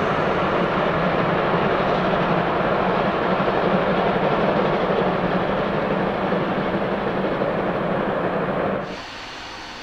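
Steam-hauled passenger train running along the line, a steady, even running noise. It drops sharply to a much quieter level about a second before the end.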